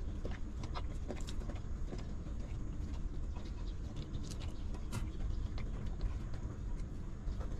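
Newborn puppy suckling at its mother's teat: many small irregular wet clicks and smacks over a steady low rumble.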